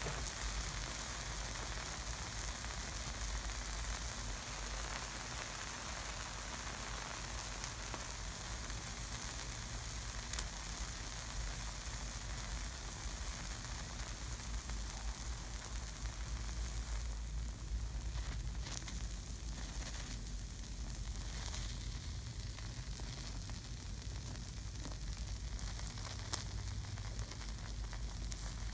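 Sulphuric acid sizzling steadily as it chars a McChicken sandwich, the acid dehydrating the bun to black carbon and giving off steam. Faint crackles come through in the second half, and there is one sharp tick near the end.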